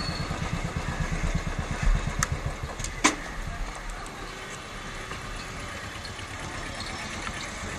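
Royal Enfield Classic 350's single-cylinder engine idling with an even low thump, then switched off about two and a half seconds in. A sharp click follows about a second later.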